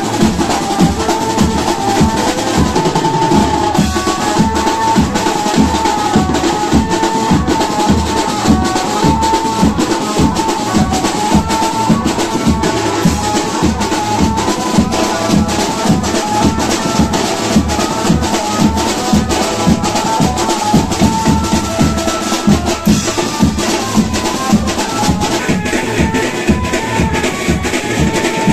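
Music with a steady, fast drum beat and a melody line running over it.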